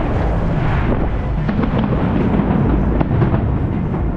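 Fireworks going off over a steady low rumble, with a run of sharp cracks between about one and three seconds in.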